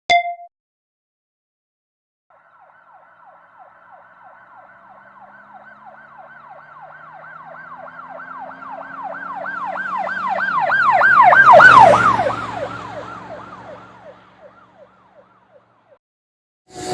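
Emergency vehicle siren in a fast yelp, several up-and-down sweeps a second, passing by. It grows louder to a peak about twelve seconds in, drops slightly in pitch as it passes, then fades away, with a low engine hum underneath.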